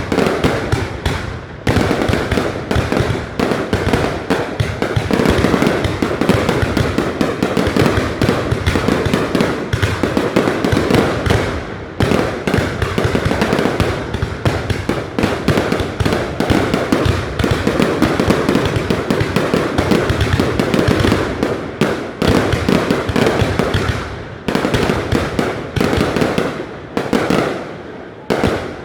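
Fireworks display: a dense, continuous barrage of bursts and crackling, dipping briefly about a second and a half, twelve and twenty-four seconds in.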